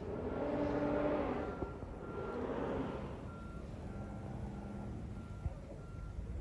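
A truck's reversing alarm beeping steadily, a little under two beeps a second, over the engine's hum, which swells and fades in the first few seconds.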